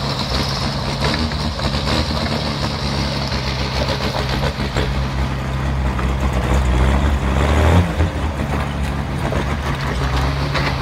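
A large truck engine idling steadily, revving up briefly and settling back about seven and a half seconds in.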